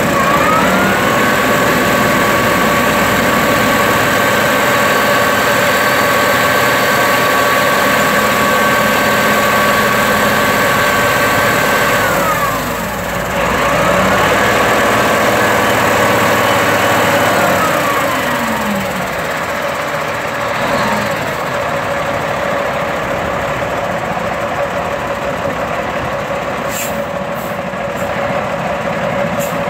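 Peterbilt roll-off truck's diesel engine and hydraulic hoist pump running at raised revs with a steady whine while the hoist tips the container off. The revs drop about twelve seconds in, rise again for a few seconds, then settle back to a lower run, with a few short clicks near the end.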